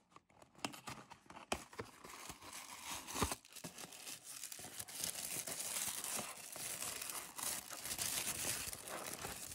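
Hands handling a small cardboard box, with a few scattered clicks of card. From about three seconds in comes a dense crinkling and rustling as tissue paper is unfolded.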